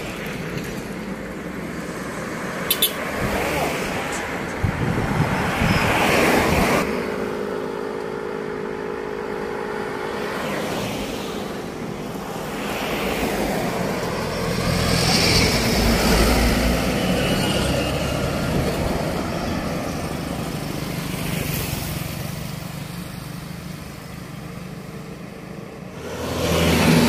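Road traffic: cars and trucks drive past one after another, their engine and tyre noise swelling and fading as each goes by. A steady engine hum stands out for a few seconds partway through.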